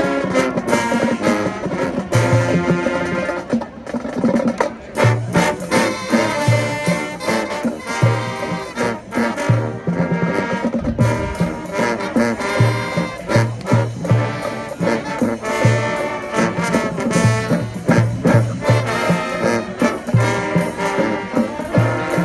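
High school marching band playing, with full brass chords and regular low bass drum hits.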